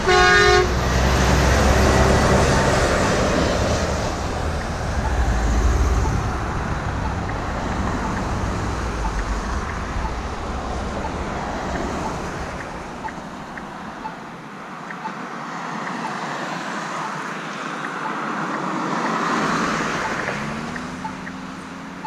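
Volvo semi-truck's horn gives a short, steady-pitched blast of about half a second at the start, then the truck's engine rumbles as it pulls through the intersection, easing into passing traffic. Near the end another vehicle's engine rises in pitch as it speeds up.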